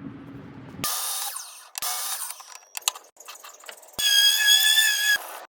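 Quick succession of abruptly cut workshop tool sounds: clicking and rattling, then about four seconds in a loud, high-pitched power-tool whine that stops sharply after about a second.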